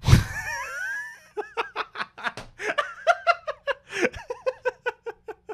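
A man bursting out laughing: a loud outburst at the start, then a long run of rapid ha-ha-ha laughs, about four a second.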